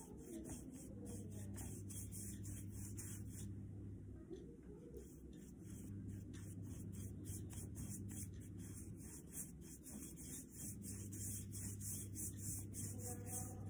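Paintbrush loaded with poster paint rubbing back and forth across paper in quick repeated strokes, about four a second, with a brief pause about four seconds in, over a steady low hum.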